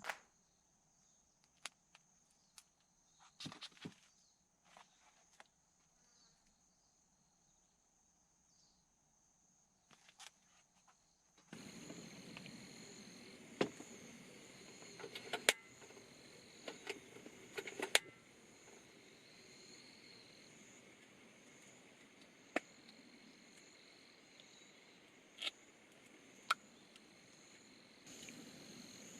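Insects, crickets among them, chirring in a steady high trill, with scattered sharp clicks and knocks. About eleven seconds in, a louder background hiss and a second, lower trill come in.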